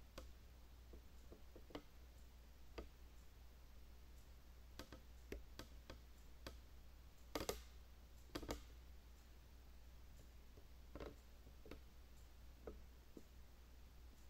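Near silence: room tone with a low hum and scattered faint clicks and knocks, the two loudest about halfway through.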